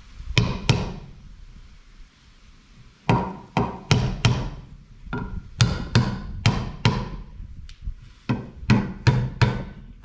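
Claw hammer driving 1.5-inch finishing nails into a wooden 2x3 to tack it down. There are two blows just after the start, a short pause, then a steady run of strikes at about two a second from about three seconds in.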